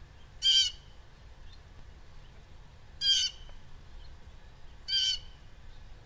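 Blue jay calling: three short calls, spaced about two seconds apart.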